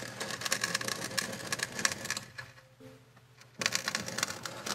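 Steel drywall taping knife scraping across wet cement, a gritty rasp: one pass of about two seconds, then a shorter one near the end.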